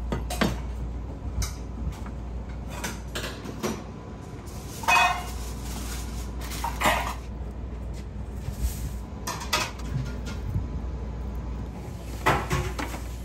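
Kitchen work noise: a series of knocks and clatters from pots, utensils and ingredients being handled, with one louder metallic clank that rings briefly about five seconds in, over a steady low hum.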